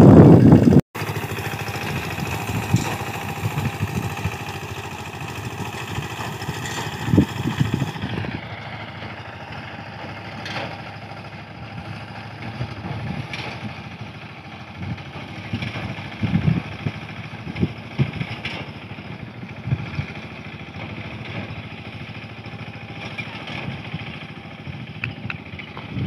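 A wheat reaper binder's small engine running steadily while the machine cuts and ties the crop, with scattered knocks and clatter from its cutting and binding mechanism. A second of loud noise at the start cuts off abruptly.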